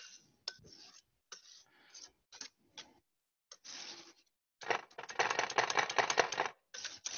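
Spatula scraping a stainless steel mixing bowl: a few short, scattered scrapes, then a dense run of quick scrapes lasting about two seconds, starting about four and a half seconds in.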